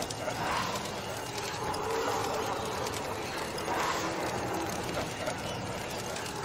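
Spooky Halloween ambience soundscape: a steady dark noise bed with a swelling, moaning surge about every three seconds, about half a second in and again about four seconds in.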